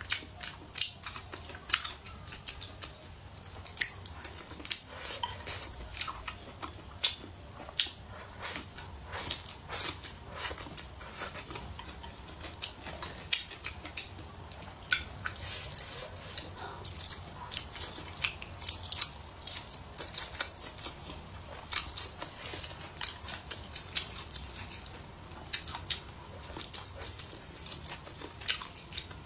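A person chewing and biting food from a plate of fried eggs and green-pepper stir-fried wheat gluten: a steady run of short mouth clicks and smacks, denser in the second half.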